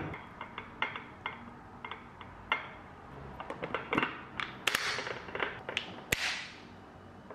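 Kitchen utensil clicking and tapping against a food storage container as dressed pasta is spooned into it, with two louder brief scrapes about two thirds of the way in and near the end.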